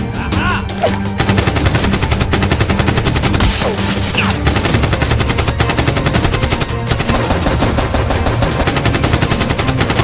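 Rapid, sustained machine-gun fire, an edited-in gunfire sound effect, starting about a second in over background music.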